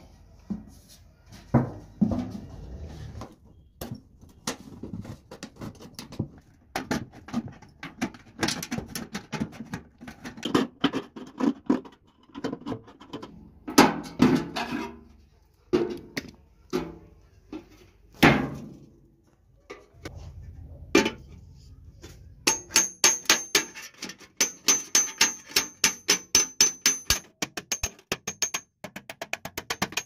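Thin tinplate from an oil tin being handled and bent, with irregular knocks and crinkles. About two-thirds of the way in, a hammer starts striking the tin's edge against a steel block in a fast, even run of several blows a second, each with a high metallic ring, to fold the edge over.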